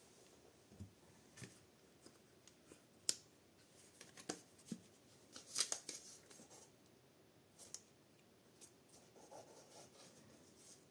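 Faint, scattered light clicks and taps with a little paper rustle from hands handling a paper cut-out on a book page and a plastic squeeze bottle of glue. The taps come irregularly, with a small cluster a little past the middle.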